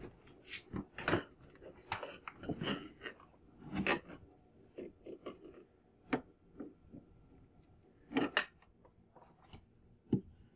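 Hands rummaging through a box of old clothes: irregular rustling and bumping, with a few sharp clicks and knocks, the loudest about eight seconds in.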